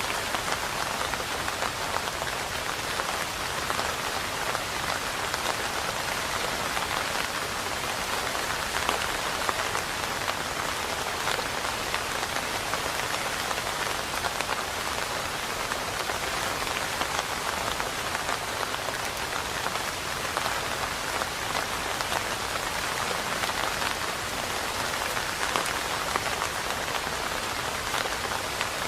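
Steady, even rain, a dense patter of many drops.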